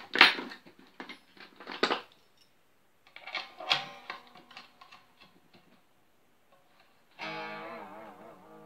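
A few sharp knocks and rattles from handling the guitar, then the strings of a BC Rich Mockingbird electric guitar with a Floyd Rose tremolo strummed twice. The second chord wavers up and down in pitch as the floating tremolo is worked with its arm.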